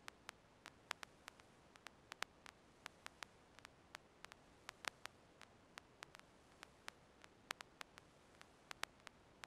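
Near silence: faint steady hiss broken by short, sharp clicks at irregular intervals, about three a second.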